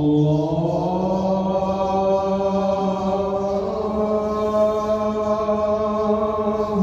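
A muezzin's voice opening the call to prayer (adhan): one long, drawn-out sung phrase of the opening "Allahu akbar". It slides up over the first second, then holds a steady note with slow bends.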